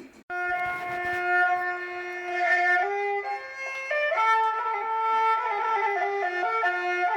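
Instrumental music from a single melodic wind or bowed instrument: a long held note, then a slow melody stepping up and down.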